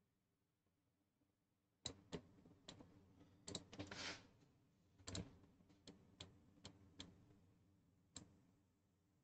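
Faint, irregular clicks of a computer mouse and keyboard: about a dozen sharp clicks starting about two seconds in, bunched more densely around the middle, with the last one near the end.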